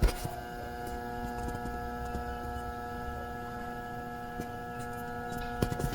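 Stalled electric fan motor switched on with a click, then giving a steady low electrical hum while its blades do not turn. Its shaft is seized, most likely with dirt, and a motor left humming like this can burn out.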